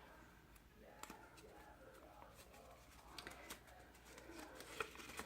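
Faint paper handling: card stock being folded and creased along its score lines, with a few soft ticks and rustles.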